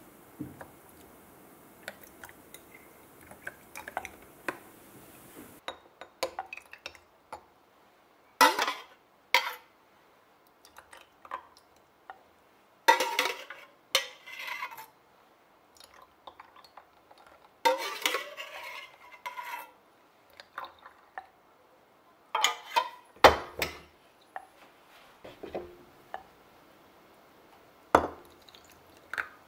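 Glass-and-ice kitchen sounds as a drink is mixed in a champagne flute: syrup concentrate poured from a carton over ice cubes, ice clinking against the glass, cucumber slices dropped in, and lemon juice poured from a glass citrus squeezer. The sharp clinks come in about half a dozen separate groups with quiet between them.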